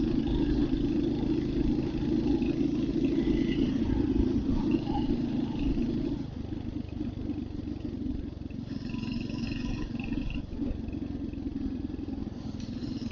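Royal Enfield Hunter 350's single-cylinder engine running on the move, with road and wind noise; it gets quieter about six seconds in and stays lower.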